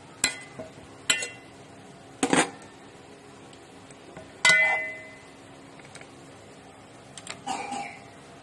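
Metal ladle clanking against the sides of a metal cooking pot as pieces of chicken are worked into thick masala: about five separate knocks with a short ring. The loudest comes about four and a half seconds in.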